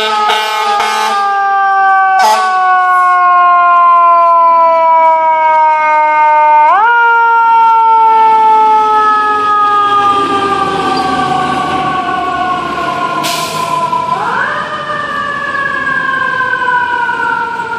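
Fire engine siren wailing: its pitch sinks slowly as it winds down, then is quickly spun back up about seven seconds in and again near fourteen seconds. It is joined by air horn blasts at the very start and a short blast about two seconds in.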